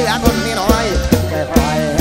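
Live lam sing (Isan molam pop) band music: a drum kit and bass keep a steady beat under wavering, vibrato-laden melody lines from khaen, keyboard and electric guitar.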